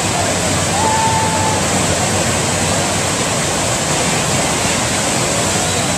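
Loud, steady rush of pumped water from an artificial surf wave machine.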